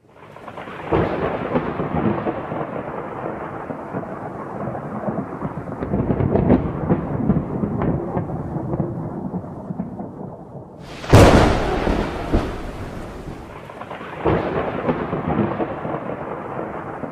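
Thunderstorm recording: rain hissing with rolling thunder, a sharp, loud thunderclap about eleven seconds in and another roll of thunder a few seconds later.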